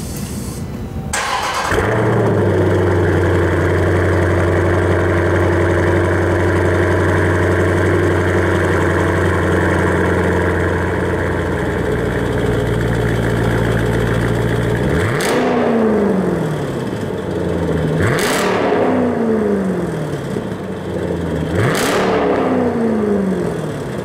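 Dodge Durango SRT's 6.4-litre HEMI V8 cold-starting through a GTHAUS Meisterschaft aftermarket exhaust with its valves open, deep and throaty. It catches about a second and a half in and holds a steady high cold idle. Near the end come three quick throttle blips, each climbing sharply and falling back.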